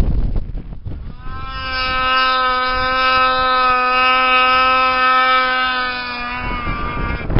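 Ski-Doo snowmobile engine held at high revs as the sled approaches at speed: a steady, high, buzzing whine that rises in about a second in and cuts out near the end as the sled reaches the camera. Wind buffets the microphone at the start and end.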